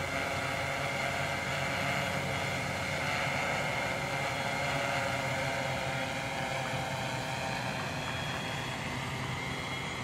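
Tarot FY680Pro hexacopter's six brushless motors and 12-inch APC propellers holding a steady, pitched buzz in hover, growing a little fainter in the last few seconds as it drifts off.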